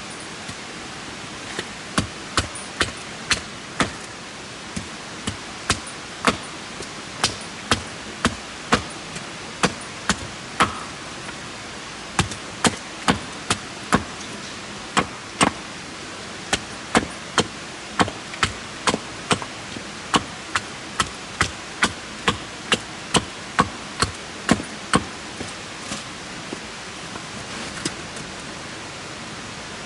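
Repeated sharp blows of a hand tool striking, about one to two a second with a few short pauses, over a steady hiss of background noise.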